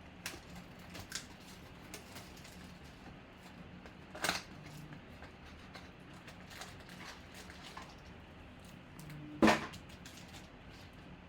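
Handling noises on a table: scattered light clicks and taps, with two sharper knocks, about four seconds in and near the end, the second the louder.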